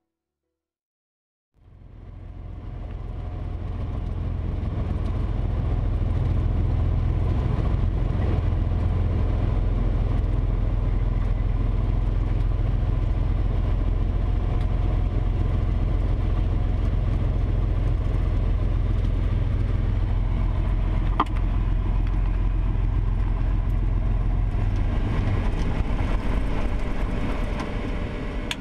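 Cessna T206's six-cylinder turbocharged piston engine and propeller running at low taxi power, a steady low drone heard inside the cabin. It fades in after a moment of silence, with one sharp click past the middle.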